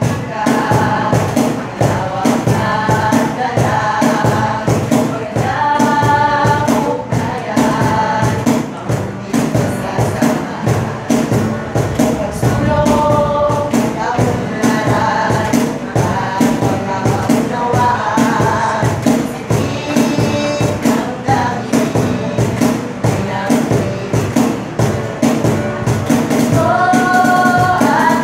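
Live acoustic music: a boy and a girl singing together to an acoustic guitar, with a cajón beating a steady rhythm.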